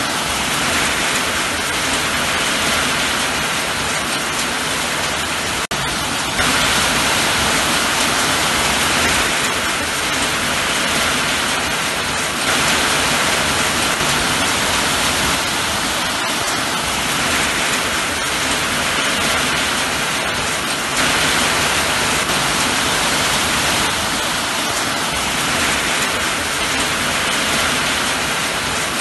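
Steady rain falling, an even hiss that stops and starts again in small sudden steps in loudness every several seconds.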